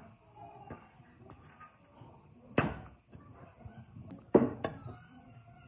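Two sharp knocks about two seconds apart, the second followed quickly by a lighter one.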